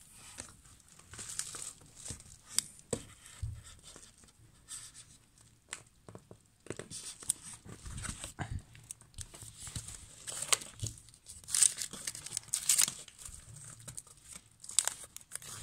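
Adhesive warning sticker peeled off a chrome lighter case, then plastic and paper packaging crinkling and rustling as it is handled, in irregular crackles that grow denser and louder in the second half.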